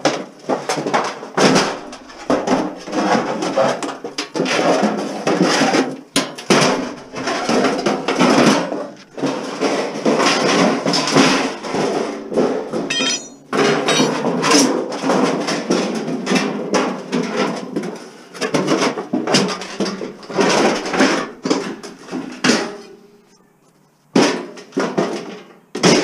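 Repeated metal clanking and knocking as a stainless steel barbecue is dismantled, with a brief high squeak about halfway through and a short pause near the end.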